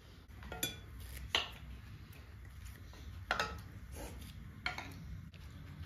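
Metal utensils clinking against a pot and dishes as soup is served: four separate sharp clinks.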